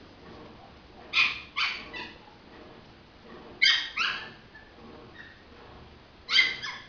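Schnauzer puppies yipping while they play-fight: seven short, high-pitched yips in three quick groups, first three about a second in, then two, then two more near the end.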